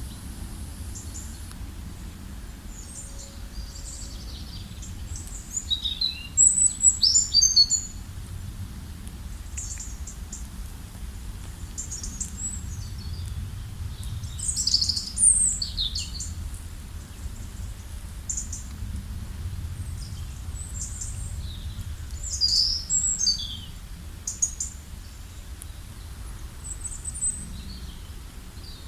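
Small birds chirping and singing in short high notes and trills, busiest a few seconds in, around the middle and about two-thirds through, over a steady low background rumble.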